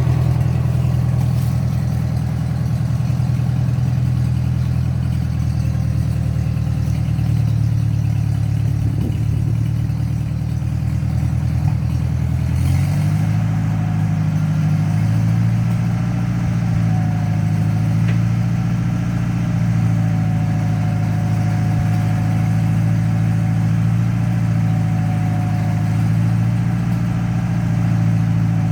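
Ford 8N tractor's four-cylinder engine running steadily while it powers the backhoe, stepping up to a higher speed about halfway through. A faint wavering whine sits over it in the second half.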